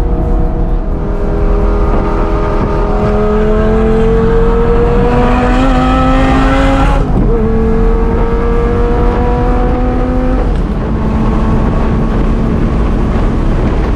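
Car engine pulling hard at highway speed, its note climbing for a few seconds and then dropping sharply at an upshift about halfway through, with a second step down later, over steady road and wind rumble.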